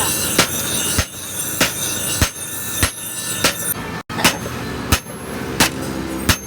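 Blacksmith's hammer striking metal on an anvil in a steady rhythm, about ten blows spaced roughly half a second apart, over a steady hum.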